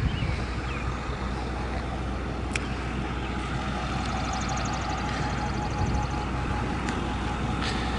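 A motor vehicle's engine running with a steady low rumble, a steady hum joining about two and a half seconds in and a rapid high ticking in the middle.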